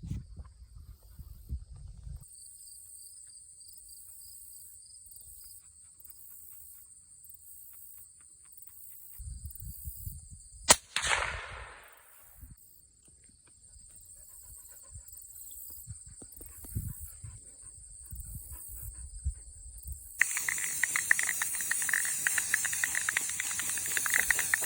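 Insects chirping steadily, then a single suppressed gunshot from a firearm fitted with a Huxwrx suppressor about eleven seconds in, blasting paint out of the silencer, with a short rushing tail after it. A loud steady hiss takes over in the last few seconds.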